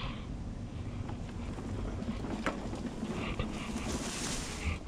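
Pride electric mobility scooter driving across a yard, heard as a steady low rumble of motion and wind on the scooter-mounted camera microphone. A hiss swells up about three and a half seconds in and stops near the end.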